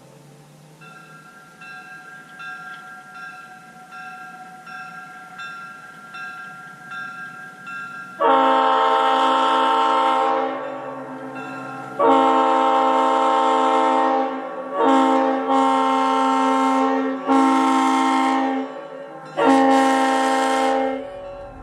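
Leslie S5T five-chime locomotive air horn being test-blown. Starting about eight seconds in, it sounds six blasts, each a loud multi-note chord: two long ones, a short one, then a mix of longer and shorter ones. Faint repeating tones come before the blasts.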